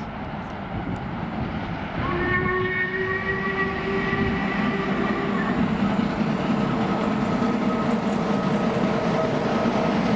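Steam locomotive with a rake of coaches running through a station, its rumble growing louder; about two seconds in it sounds its whistle, a steady multi-note blast lasting about three and a half seconds, with a fainter tone lingering afterwards.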